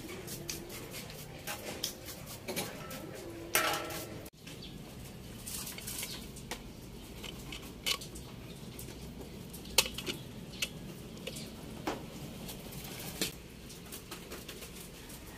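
Light metal engine parts being handled: scraping and clinking, then scattered taps and clicks as main bearing caps are set onto the crankshaft of a Suzuki K6A engine block.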